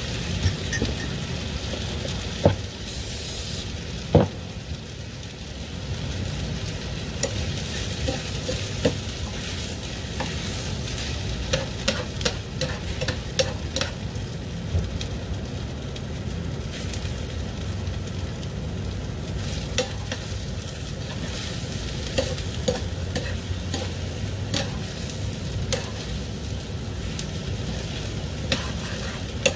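Pad thai frying in a pan: rice noodles, vegetables and liquid egg sizzling steadily while being stirred and tossed with tongs, which click and knock against the pan many times, loudest about two and a half and four seconds in.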